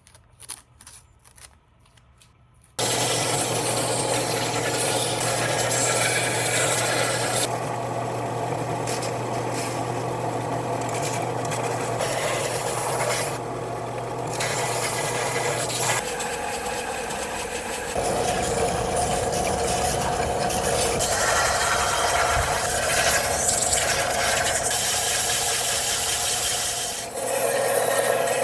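Power sander abrading a wooden cutout, a steady gritty rubbing over a low motor hum, starting about three seconds in after a few faint clicks.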